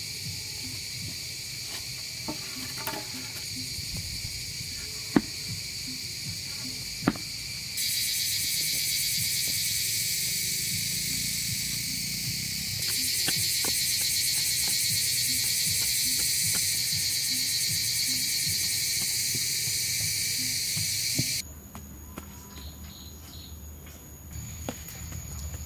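Steady, high-pitched insect chorus that jumps abruptly in level and texture three times, with a few sharp knocks in the first third.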